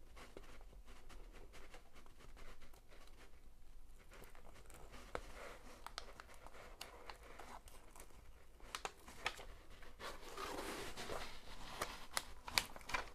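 Faint rustling and crackling of a diamond painting canvas's protective release paper as it is handled, pressed down and smoothed by hand, with scattered small crackles. A denser stretch of rustling comes about ten seconds in.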